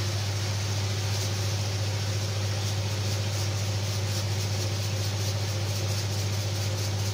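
Chicken breast fillets sizzling in oil in a grill pan, over a steady low hum. Faint crackles come more often from about halfway through.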